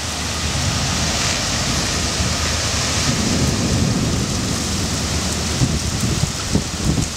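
Heavy rain and gusting wind as a thunderstorm arrives: a steady loud rushing hiss with a low rumble underneath and a few sharp taps near the end.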